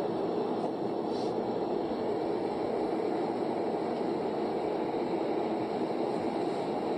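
Steady road and engine noise of a car being driven, heard from inside the cabin through a dashcam's microphone.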